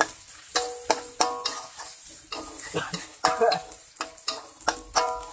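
A spatula scraping and knocking against a wok while stir-frying sliced shallots, garlic and chilies in a little hot oil. There are about a dozen irregular strikes, each ringing the wok briefly, over a steady sizzle.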